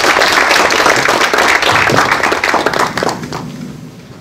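Audience applauding, many hands clapping together; the applause fades away near the end.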